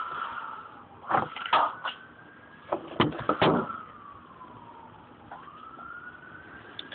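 A siren wailing in the background, its pitch sliding slowly down and then back up. Loud clattering knocks break in about a second in and again around three seconds in.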